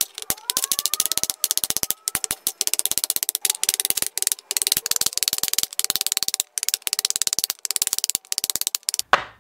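A blade chopping and splitting chips off a small wooden block, heard as a rapid, densely packed run of sharp wooden knocks, many a second, with a few short breaks.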